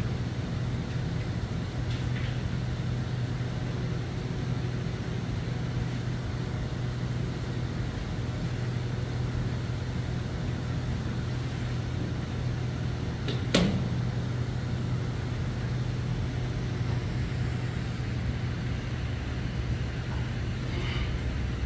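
Steady mechanical room hum, like air-conditioning or fans, with a single sharp click about fourteen seconds in.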